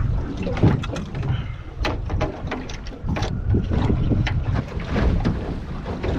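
Small boat on the water with wind buffeting the microphone into a steady low rumble, and many short irregular knocks and slaps from water and gear against the hull.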